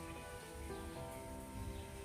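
Soft ambient music of slow, sustained notes, over a low rushing noise like wind.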